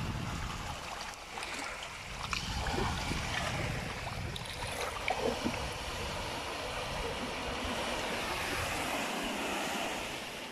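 Small sea waves washing in over sand and pebbles and draining back, with wind rumbling on the microphone.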